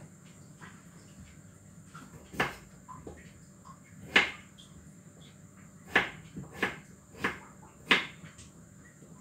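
Kitchen clatter at a counter: six sharp knocks and clacks, two a couple of seconds apart, then four in quicker succession near the end, as food preparation goes on around a plastic bowl of chopped vegetables.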